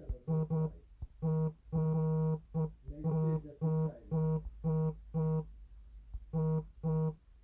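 Samsung Galaxy S8's vibration motor buzzing in about a dozen short and longer pulses at one steady pitch, in an uneven rhythm: vibration patterns being previewed in the phone's settings.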